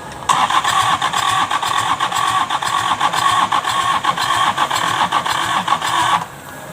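A rapid mechanical whirring clatter that starts abruptly, runs about six seconds and cuts off suddenly.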